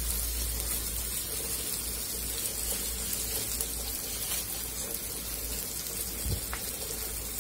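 Steady sizzle of sliced onions, garlic and spices frying in oil in a metal karahi, with a light knock about six seconds in.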